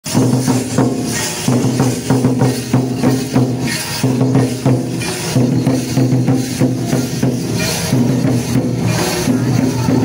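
Folk drumming in a fast rhythm: hand-played mandar barrel drums and large kettle drums beaten with sticks, over a low pitched melody that recurs in short phrases.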